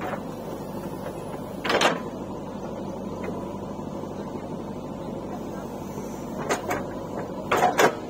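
JCB 3DX backhoe loader's diesel engine running steadily as the backhoe digs, with loud knocks from the bucket and arm about two seconds in and twice near the end.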